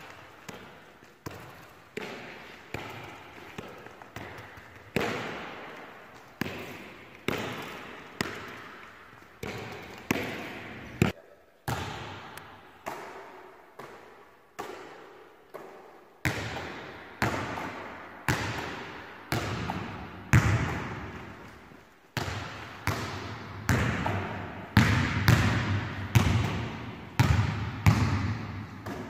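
A ball repeatedly bouncing on a wooden sports-hall floor and smacking into hands, a sharp strike about once a second, each trailing off in the hall's echo. In the second half it is a basketball being passed between two players, and the strikes are louder.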